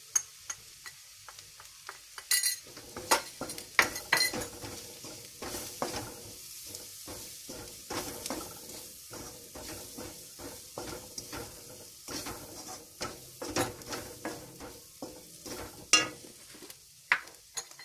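A spatula stirring and scraping shallots and spice powders frying in oil in a metal kadai: the oil sizzles softly under irregular scrapes and knocks of the spatula against the pan.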